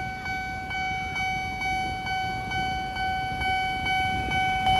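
Railway level-crossing warning bell sounding continuously: one steady ringing tone with a beat about twice a second. It signals that the barriers are down and another train is approaching.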